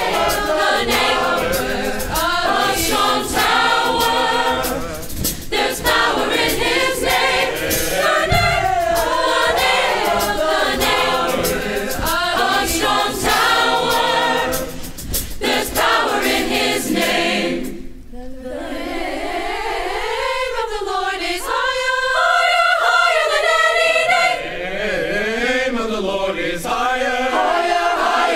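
Large youth gospel choir singing in full harmony with band accompaniment. About two-thirds of the way through, the band drops out and the choir carries on unaccompanied.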